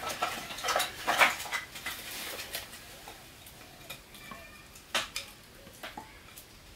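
Irregular clinking and knocking of hard objects being handled, densest in the first second and a half, with a few sharper knocks around five seconds in.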